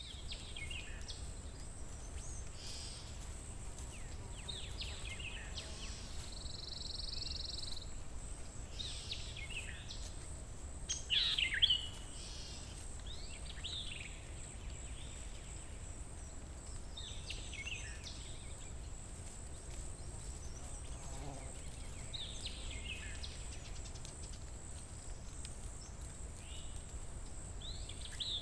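Songbirds singing short, quick falling phrases every few seconds in a forest, the loudest phrase about eleven seconds in, with one held high note a few seconds earlier. Underneath runs a steady high-pitched hiss and a low rumble of background noise.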